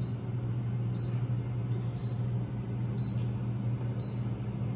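Steady low hum with a faint, short high-pitched pip about once a second.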